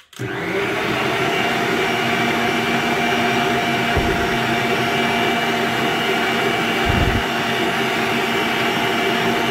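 Electric stand mixer running steadily at speed, its wire balloon whisk beating egg whites in a steel bowl toward stiff peaks, with a steady motor whine over a whirring hiss. Two brief low thuds come about four and seven seconds in.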